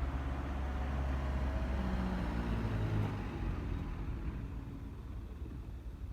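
Low, steady diesel engine rumble, fading from about halfway through as it moves away.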